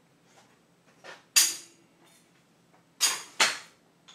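Sharp metallic clacks from a high-lift jack's ratcheting lift mechanism as it is let down to release tension on a braced wall: one about a second and a half in, then two close together about three seconds in, each ringing briefly.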